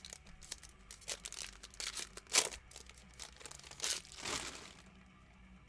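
Foil wrapper of a Mosaic basketball trading-card pack crinkling and tearing as it is ripped open, in a run of short rustles. The loudest comes about two and a half seconds in and another near four seconds, and it dies down near the end.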